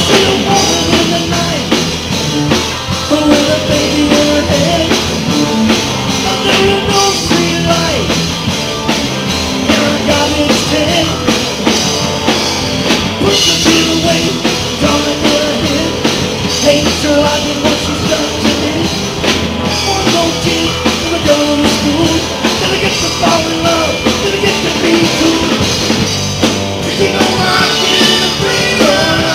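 Live blues-rock band playing: electric guitars and a drum kit, with a lead part carried through the vocal microphone.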